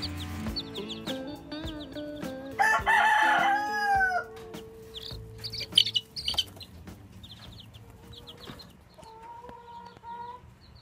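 Chicks peeping throughout in short, high, falling cheeps, which grow louder about halfway through. A rooster crows once, loudly, for about a second and a half, a quarter of the way in.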